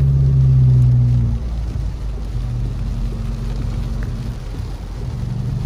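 Car engine drone and road noise heard from inside the cabin while driving on a wet road in rain. The engine hum is strongest for about the first second and a half, then eases off to a steady, lower level, with a hiss of wet tyres and rain underneath.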